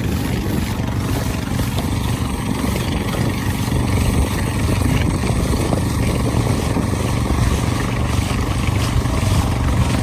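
A steady, low motor drone that holds an even level throughout.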